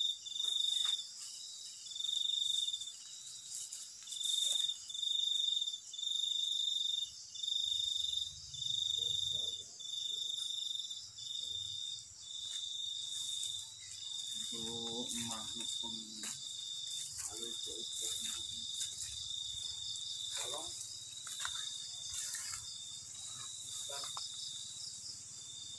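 Crickets chirping, one loud cricket close by giving pulsed chirps about once a second that run into a near-continuous trill about halfway through, over a steady high insect chorus.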